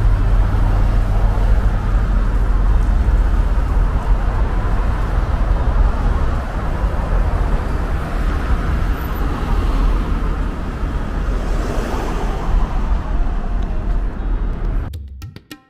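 Steady road traffic noise along a busy city embankment, with a vehicle passing closer about twelve seconds in. Near the end the traffic cuts off abruptly and music with plucked, percussive notes begins.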